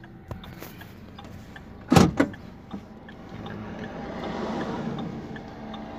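Car interior noise while driving: steady engine and road hum, with two sharp knocks close together about two seconds in.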